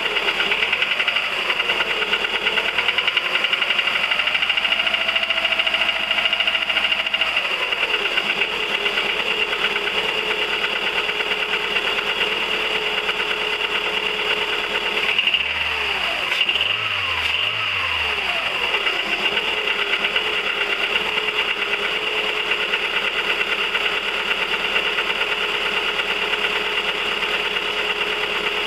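1999 Volkswagen 1.4 16V four-cylinder petrol engine running with a fast, even ticking, the revs rising and falling briefly near the start and again about halfway through. The owner suspects the tick comes from the cam rollers or the oil pump, and links it to the engine burning oil.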